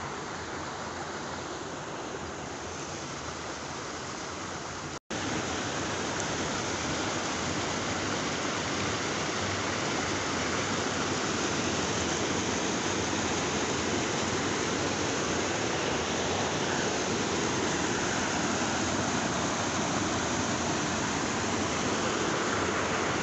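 Shallow river water rushing steadily over rocks in a riffle. The sound cuts out for an instant about five seconds in, then comes back a little louder.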